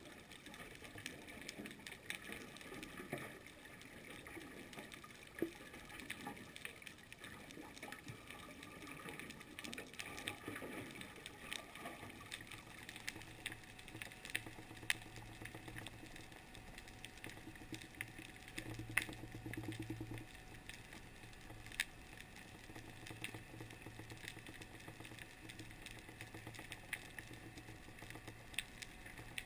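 Underwater ambience picked up by a camera in its housing: a steady hiss with scattered sharp clicks and crackles. About twelve seconds in, a low droning hum joins, swelling and fading in bouts.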